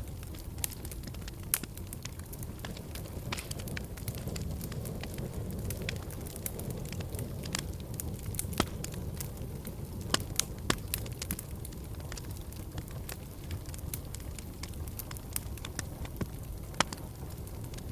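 Wood fire burning in a fireplace: a steady low rumble of flames with frequent irregular crackles and pops, a few of them sharper and louder.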